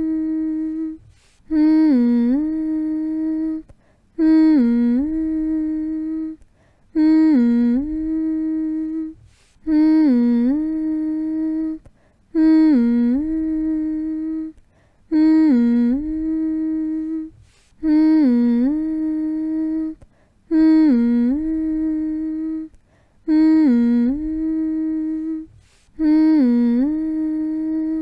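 A person humming a soothing lullaby-style hum for lulling a baby to sleep: the same short phrase over and over, about every two and a half seconds. Each hum dips in pitch and comes back up, then holds one steady note before a brief pause.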